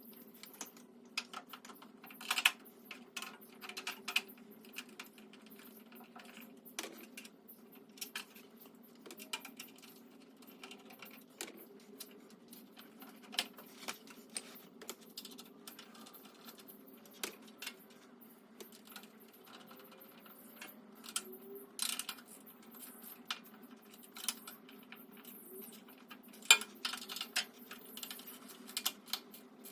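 Scattered light metallic clicks and clinks of hand tools and bolts being handled while caster wheels are fitted to a steel tool cart, over a steady low hum. The clicks come irregularly, a few sharper knocks standing out.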